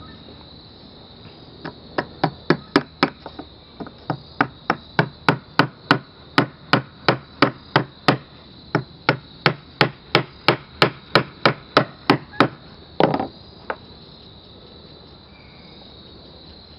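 Small hammer tapping the tiny retaining pins back into the barrel housing of a KWA MP9 gas blowback airsoft submachine gun: a long run of sharp, even taps, about three a second, ending with a double knock. The pins are being driven home to lock the threaded barrel in place.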